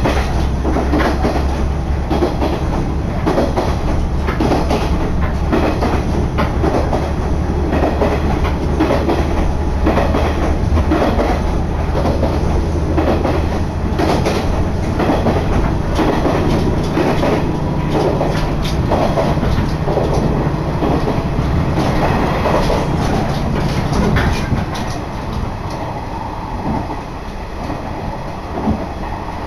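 Diesel railcar running along the line: a steady low engine drone under rapid, irregular wheel clatter over the rail joints. The engine note steps up about halfway through, and the whole sound eases a little near the end.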